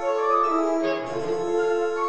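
Instrumental background music, a classical-style piece with held notes and a moving melody.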